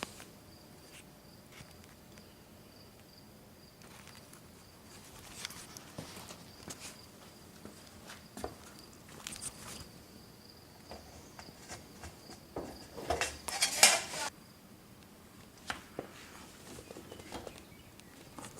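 Scattered footsteps and handling rustles, loudest in a cluster about 13 seconds in, over a cricket chirping in a steady pulsing high trill that stops about three-quarters of the way through.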